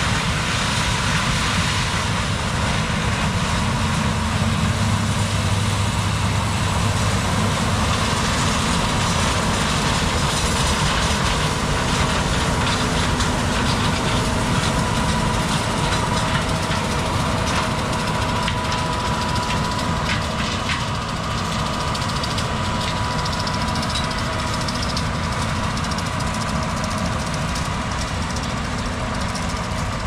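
Farm tractor engine running steadily, with a thin steady whine above the engine hum.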